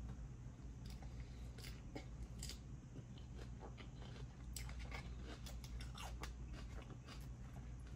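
A person chewing a crunchy snack close to the microphone: irregular small crunches and mouth clicks over a low steady hum.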